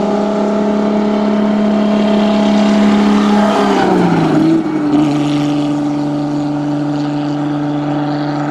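Alfa Romeo GTV6 race car's V6 engine passing by at a steady, loud note. Its pitch drops about four seconds in as the car goes past, then holds lower as it moves away.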